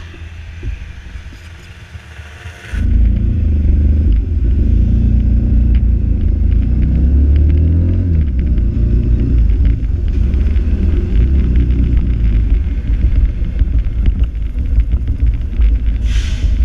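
Small underbone motorcycle riding along, heard as a loud low rumble of wind buffeting and engine on the bike-mounted camera's microphone, setting in suddenly about three seconds in. A short sharper sound comes near the end.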